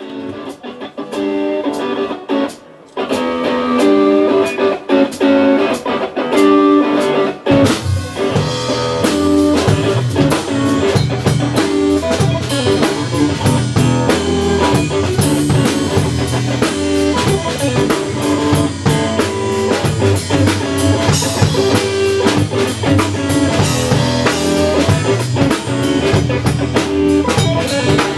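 Live Texas blues-rock trio playing an instrumental passage with electric guitar and drums. The bass and the full band come in strongly about seven and a half seconds in.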